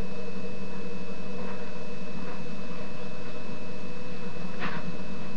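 Steady low hum with hiss from an old film's soundtrack played through a television, with a faint brief sound about four and a half seconds in.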